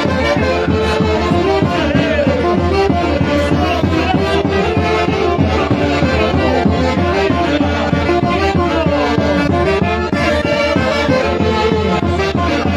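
A Peruvian orchestra playing a Santiago tune, with a held-note melody over a steady beat.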